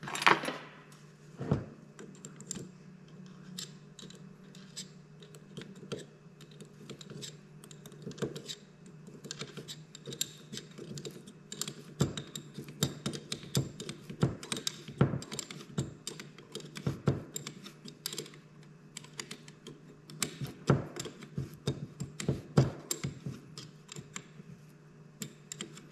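Irregular clicks and taps of small metal parts being handled and fitted on an MSD distributor, with a sharp knock at the start. A steady low hum runs underneath.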